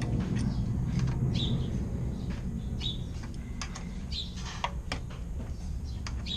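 A small bird chirping repeatedly, one short high chirp about every second and a half, over a steady low rumble with scattered sharp clicks.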